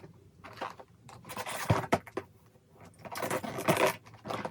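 Hands opening a cake box's packaging: irregular scraping and rustling, with a sharp knock a little under two seconds in and a busier stretch of rustling near the end.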